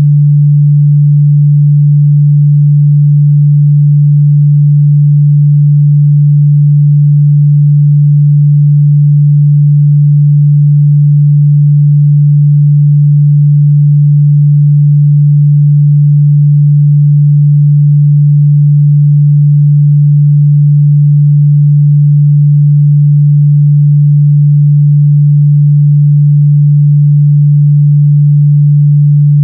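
A pure 146 Hz sine-wave test tone, steady and unchanging in pitch and loudness.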